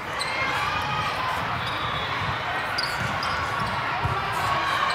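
Volleyballs being struck and bouncing on several courts in a large hall, mixed with players' calls and spectators' voices. Brief shoe squeaks are scattered through it.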